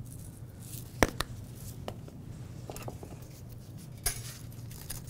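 A few sharp clicks of a small spice jar and utensils against a small glass bowl, the loudest about a second in. About four seconds in, a wire whisk starts clinking and ticking against the glass as it whisks olive oil and seasoning.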